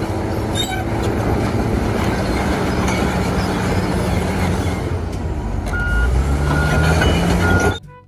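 Large crawler bulldozer's diesel engine working under load, with the clatter of steel tracks and rock being pushed. From about six seconds in the engine revs up, and a reversing alarm beeps three times before the sound cuts off.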